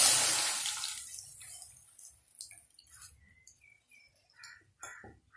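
Tamarind water poured into a hot aluminium pan of frying onions and tomatoes, hissing loudly as it hits and dying away over about two seconds. A few faint pops and ticks follow as the liquid settles.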